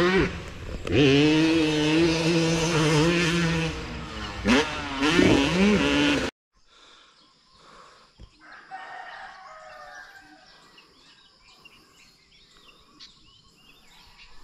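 Motocross dirt bike engine revving: it holds a steady high note, then climbs and drops in pitch, and cuts off abruptly about six seconds in. After that come quiet surroundings with faint bird calls.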